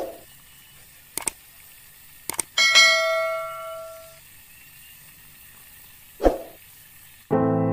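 Subscribe-button animation sound effects: a swish, two pairs of sharp clicks, then a bell-like notification chime that rings and fades over about a second and a half. Another swish follows, and piano music begins near the end.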